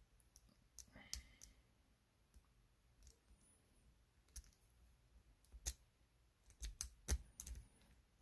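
Faint, irregular metallic clicks and ticks of a rake pick and tension wrench working in an old Yale wafer lock, growing more frequent in the second half.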